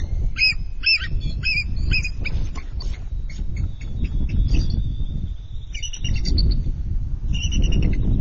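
A pair of bald eagles giving their high, piping chirp-trill calls in quick runs of short notes, one run at the start and more from about six seconds in. These are defensive calls at an intruder near the nest, likely another eagle. A steady low rumble lies underneath.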